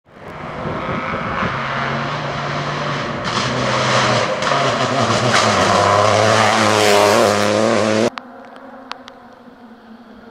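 Opel Corsa rally car's engine revving hard at full throttle, with several gear changes and the pitch climbing as it passes. About eight seconds in, the sound cuts suddenly to a much fainter engine of an approaching VW Golf rally car.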